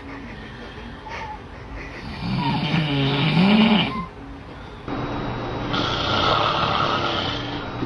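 Loud snoring: one long rising-and-falling snore about two seconds in, then a steadier, even-pitched sound from about five seconds in.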